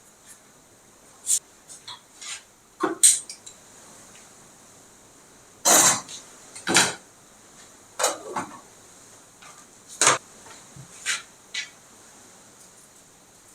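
Kitchenware being handled: about ten irregular clinks and knocks of pots, dishes and utensils, the loudest a pair of heavier knocks in the middle.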